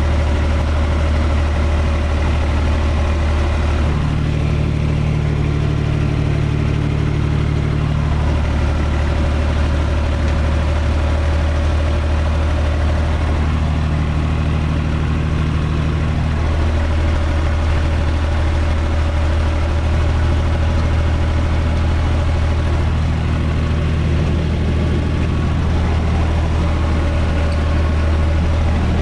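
UTB 445 tractor's diesel engine running steadily while the tractor works a rotary tiller through garden soil, heard from inside the cab. Its note shifts slightly a few times.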